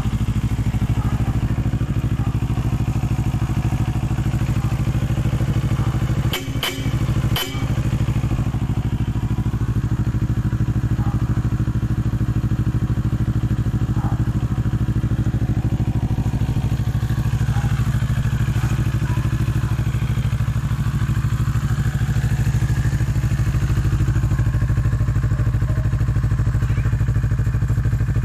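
NK400 motorcycle's 400 cc parallel-twin engine idling steadily through an aftermarket Akrapovic silencer, with two or three brief dropouts in the sound about six to seven seconds in.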